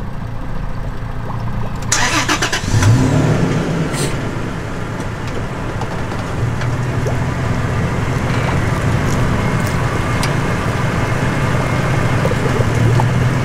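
Toyota Tacoma pickup's engine running as it reverses the boat trailer further down the ramp, revving up briefly about three seconds in, then a steady low hum.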